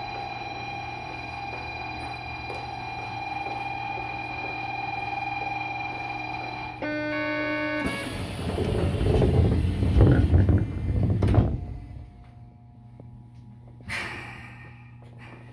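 Platform warning tone held steady, then a short run of chime notes about seven seconds in, after which the platform screen doors and the New Tram's car doors slide shut with a loud rush that ends in a thud at about eleven seconds: the doors closing before departure.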